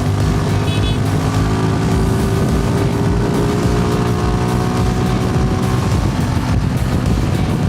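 Suzuki Gixxer SF's single-cylinder engine and exhaust running steadily as the motorcycle is ridden, the engine note drifting gently in pitch.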